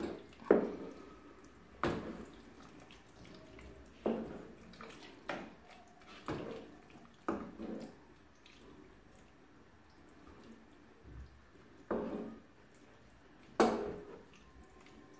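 Wooden spoon stirring a thick stew of cassava leaves and beans in sauce in a pot: irregular wet sloshes and squelches every second or two, with a lull of a few seconds after the middle.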